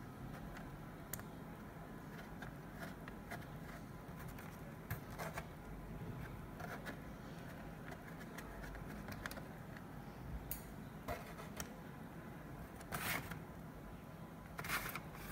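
Handling noise from an Acer Aspire E5-573G laptop's plastic case: scattered light clicks and short scrapes. About 13 seconds in there is a louder scrape, and more follow near the end as the optical drive slides out of its bay.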